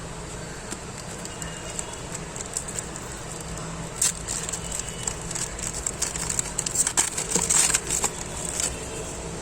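Foil trading-card packet crinkling and being torn open, with cards rustling and clicking as they are handled, loudest about four seconds in and again in a busy stretch near the end. A steady low hum runs underneath.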